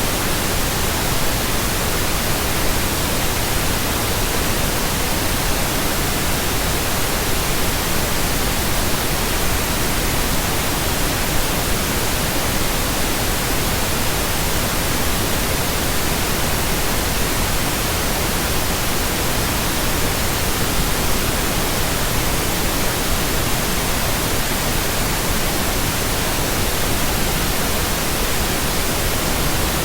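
Steady synthetic pink noise: an even hiss with no change.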